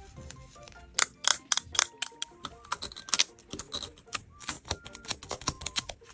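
Crinkling and clicking of tape-covered paper craft pieces being handled, stuck together and pressed, a quick run of sharp crackly clicks, over soft background music.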